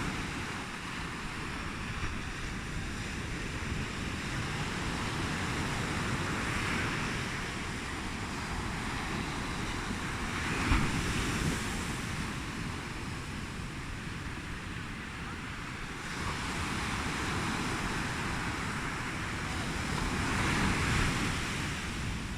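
Ocean surf washing in, swelling and fading every few seconds, with a low rumble of wind on the microphone.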